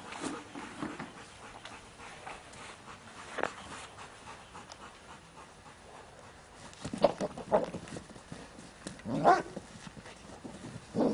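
A Belgian Malinois barking a few times, single short barks spaced seconds apart with the loudest near the end, as it guards an object against an approaching decoy in a bite suit.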